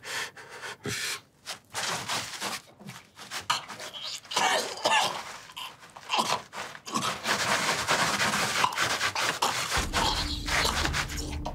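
A man breathing hard in uneven gasps and coughs. Low, steady music comes in near the end.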